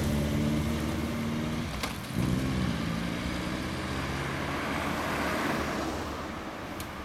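Suzuki GSX1400's oil-cooled inline-four through a WR'S aftermarket muffler, accelerating away. About two seconds in the revs drop briefly for a gear change, then climb again, and the sound fades with distance.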